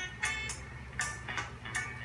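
Upbeat reggae background music: short, regularly spaced chord strokes over a steady bass line.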